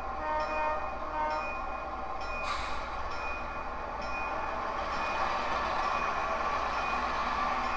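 Model locomotive's onboard sound system during switching: a bell ringing about once a second, a horn-like sound in the first second or so, and an engine sound that builds steadily from about halfway.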